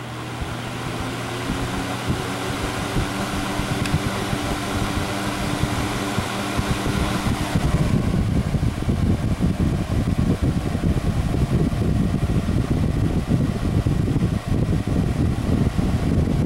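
Duracraft DB-10 box fan switched on at high speed, spinning up: a motor hum under a growing rush of air that becomes louder and rougher about eight seconds in as the blades reach full speed.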